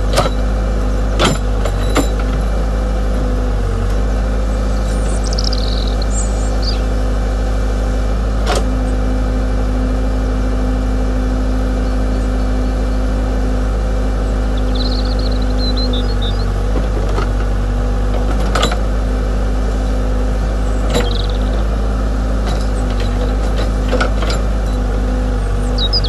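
Radio-controlled excavator's hydraulic pump motor humming steadily, with a few sharp metallic clanks from the machine working.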